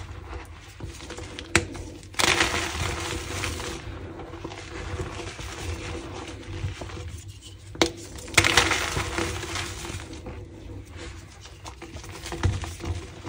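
Brittle slices of pressed gym chalk topped with Holi powder being crushed, crunching and crumbling in bursts, with a few sharp snaps, about 1.5 s in and just before 8 s.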